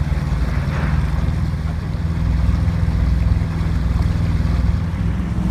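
A sailboat's inboard engine drones steadily at low pitch while the boat motors along, with wind noise on the microphone.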